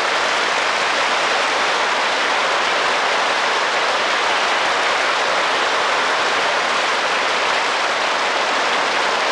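Large audience applauding steadily, a dense even clapping that follows straight on from the end of the dance music.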